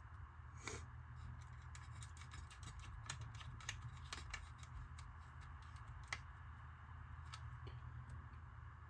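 Faint, irregular small clicks and taps of screws and plastic parts being handled and fitted to an RC crawler's hard body, over a low steady hum.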